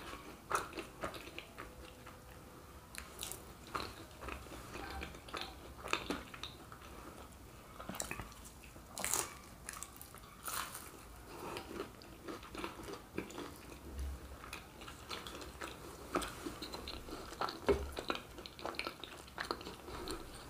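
Close-miked biting and chewing of crisp fried pastel pastry filled with Nutella, heard as irregular sharp crunches and crackles with chewing between them.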